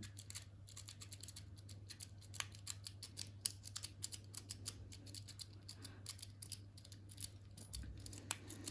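Lock-pick rake worked in and out and up and down in a six-pin pin-tumbler lock held under tension: a fast, irregular run of faint metallic clicks and scraping as the rake bounces the pins.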